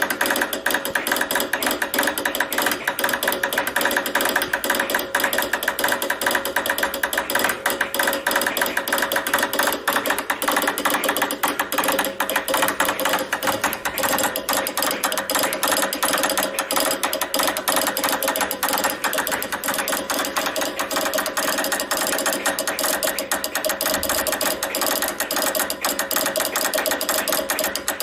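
Morse code sent at high speed on a straight key: the key's contacts click in a fast, unbroken stream.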